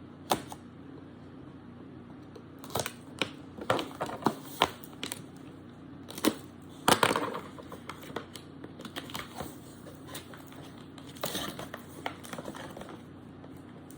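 A cardboard product box being opened and its packaging handled: scattered clicks, taps and crinkling, loudest about seven seconds in.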